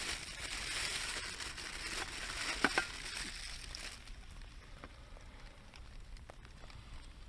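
Campfire crackling, with a hiss for the first few seconds that eases off, leaving scattered pops.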